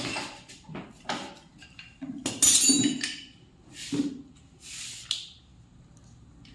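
Metal tools and motorcycle parts clinking and clanking during a repair: about five separate knocks, the loudest a ringing metallic rattle about two and a half seconds in.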